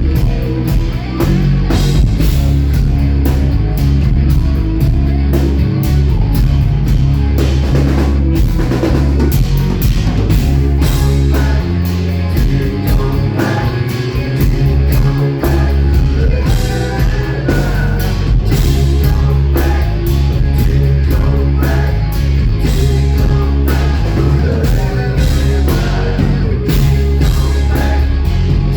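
Live rock band playing an instrumental section: drum kit, bass and distorted electric guitars at full volume.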